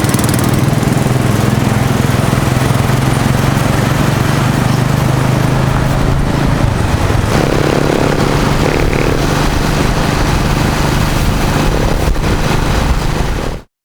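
A small engine running steadily and loudly, its low hum shifting in pitch about halfway through, before the sound cuts off abruptly near the end.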